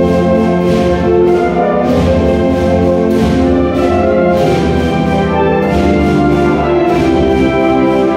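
Wind band playing a Spanish processional march (marcha procesional), with clarinets, saxophones, trumpets and low brass playing full, sustained chords.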